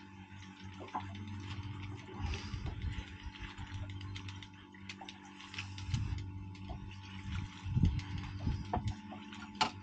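Fishing reel being cranked while jigging, with small mechanical ticks and clicks from the reel over a steady low hum. A few low thumps come in around two, six and eight seconds in, and one sharp click comes near the end.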